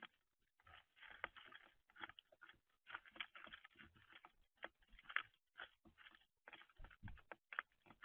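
House sparrows pecking at and cracking sunflower seeds and peanuts in a tray feeder: quiet, irregular clicks and taps of beaks on seed shells and the tray.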